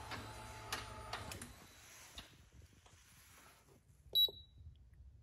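Handheld flash tuner gives one short, high electronic beep about four seconds in as its OK button is pressed to start communicating with the bike's ECU. Before it, a few faint clicks and handling noises.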